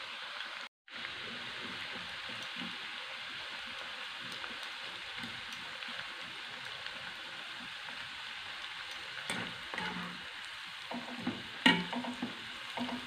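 Sliced onions sizzling steadily as they deep-fry in hot coconut oil. The sound cuts out for a moment about a second in, and in the last few seconds a metal wire skimmer stirs them, clinking and scraping against the pan.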